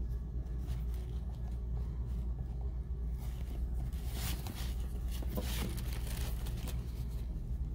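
Hands handling a leather wristlet, opening its pockets: a few soft rustles and rubs of leather over a steady low hum.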